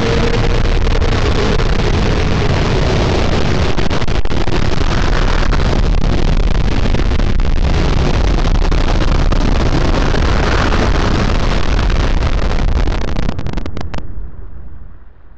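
Loud, heavily distorted rumbling noise from an edited logo's sound track, starting suddenly and holding steady, then breaking up and fading out near the end.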